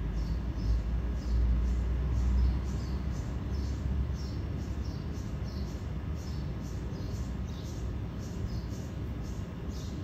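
A hanging swarm of honeybees clustered on a branch, humming steadily. Birds chirp repeatedly over it in short high notes, and a low rumble is louder in the first couple of seconds.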